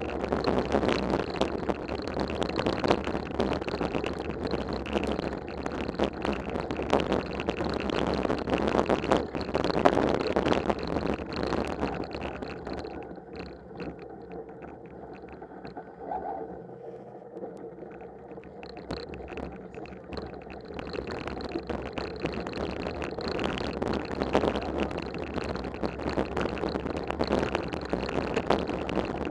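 Mountain bike riding over a snow-covered trail: a steady rumble and rattle from the ride, with frequent small knocks, easing off for several seconds around the middle before picking up again.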